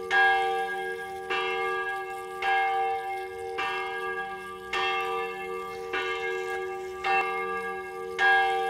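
A church bell tolling, struck about once a second, each stroke ringing on into the next.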